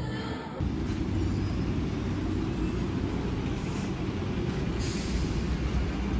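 Street traffic noise: a steady low rumble of passing road vehicles, with a couple of brief faint hisses.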